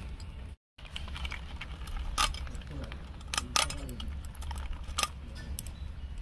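Climbing perch (koi fish) being scaled and cut against the blade of a boti: irregular sharp scraping clicks as the blade catches the ash-coated scales.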